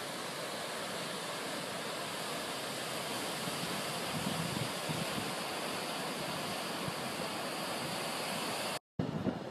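Ocean surf breaking and washing over coastal rocks, a steady rushing hiss of sea noise.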